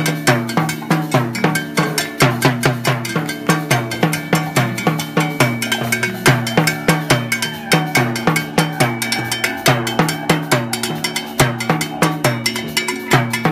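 A live Latin percussion ensemble of congas and timbales playing a fast, steady, continuous rhythm. Pitched low drum tones are overlaid with sharp, high strikes.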